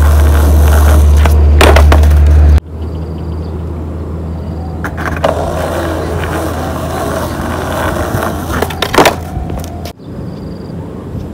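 Skateboard wheels rolling over rough concrete: a loud low rumble that drops off abruptly about two and a half seconds in, then quieter rolling with a few sharp clacks of the board around the middle and near the end.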